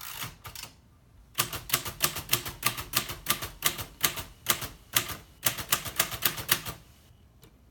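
1949 Royal Quiet De Luxe manual typewriter being typed on: a few keystrokes, then a quick steady run of typebars striking the platen, about five a second, typing the shifted figures on the number row. The typing stops about a second before the end.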